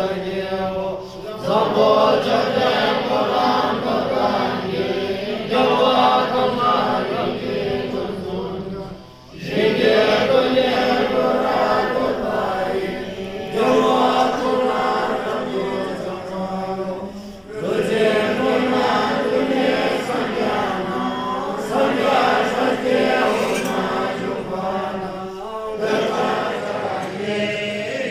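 A large congregation chanting a Tibetan Buddhist prayer together in unison, in long phrases of about eight seconds broken by brief pauses for breath.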